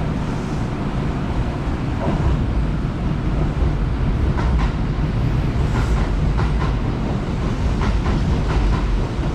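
Kintetsu electric train running along the platform tracks: a steady, loud low rumble with scattered clicks of wheels over rail joints.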